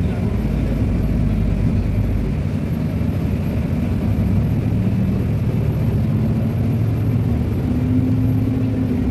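Bus engine running under way, heard from inside the bus as a steady low drone, its pitch rising gradually over the last few seconds as it speeds up.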